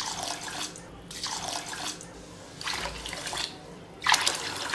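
Water poured from a steel tumbler into a steel pot of washed basmati rice, four separate pours, to set the rice soaking.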